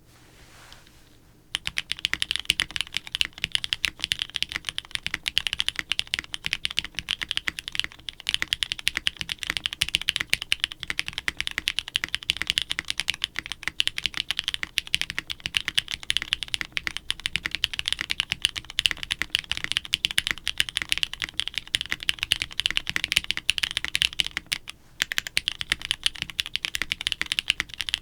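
Fast, continuous typing on a soldered, plateless mechanical keyboard fitted with Kailh-stem Cherry switches: a dense run of crisp keystroke clacks, starting about a second and a half in, with a brief pause near the end.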